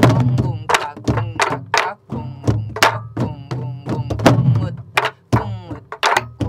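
Several sori-buk (Korean pansori barrel drums) played together in a jungjungmori pattern, with dull palm and stick strokes on the drumheads and sharper cracks of sticks on the wooden shells, a few strokes a second. A woman's voice chants along over the drumming.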